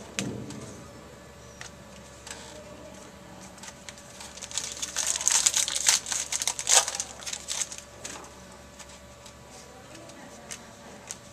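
Crinkling of a trading-card pack's foil wrapper as it is handled and torn open, busiest for a few seconds in the middle, with a few light clicks around it.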